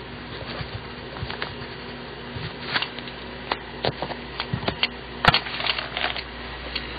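A Papermate Top-Notch mechanical pencil with 0.7 mm lead writing on paper: faint scratching strokes, with a cluster of sharper ticks and scrapes in the second half, the loudest a little past five seconds in.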